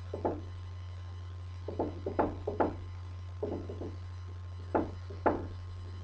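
Dry-erase marker knocking and scraping on a whiteboard as someone writes, in short clusters of taps. A steady low hum runs underneath.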